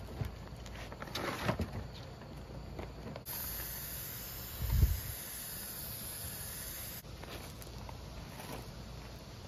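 Aerosol can of spray adhesive spraying: a steady hiss that starts abruptly a few seconds in and cuts off about four seconds later, with a low thump partway through. Before it, plastic sheeting rustles and clicks as it is handled.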